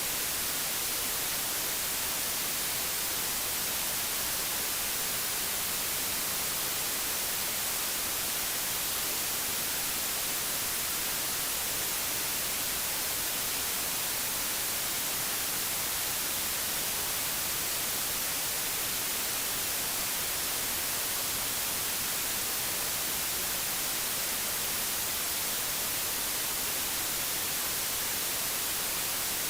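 Digital white noise: a steady, even hiss that does not change.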